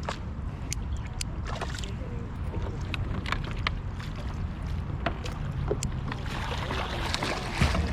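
Outdoor ambience from a fishing kayak on open water: a steady low rumble of wind on the microphone, with scattered light clicks and taps of gear against the boat. A brief splashy hiss comes about six seconds in.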